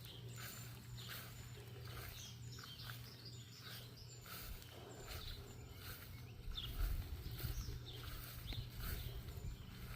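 Birds chirping over and over in short calls, faint, over a steady low hum, with a low rumble joining in about two-thirds of the way through.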